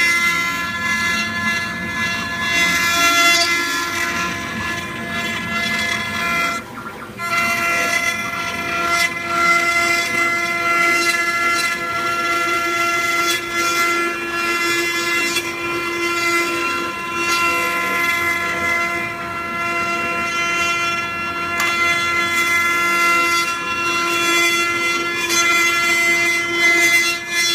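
CNC router spindle running with a steady high whine while its bit carves a relief into a wooden board, with a brief drop about seven seconds in.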